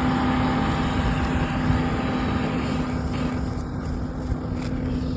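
Combine harvester running in the field: a steady engine hum with a noisy rush that slowly fades.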